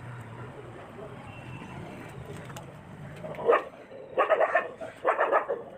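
A dog barking several times in the second half, each bark a short loud burst, over a faint low hum.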